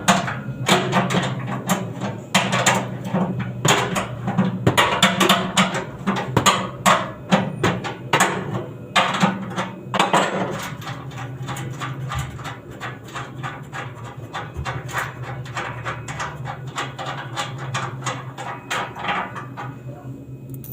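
Hammer knocking repeatedly during a blower fan repair: quick blows for about the first ten seconds, then lighter, sparser taps, over a steady low hum.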